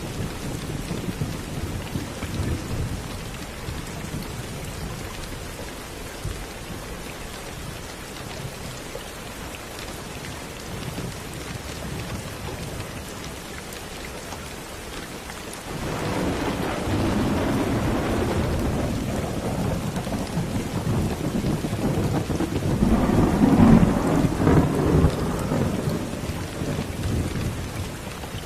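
Steady rain falling with thunder. A low rumble dies down over the first few seconds; about halfway through, a new roll of thunder sets in suddenly, swells to its loudest near the end and then fades.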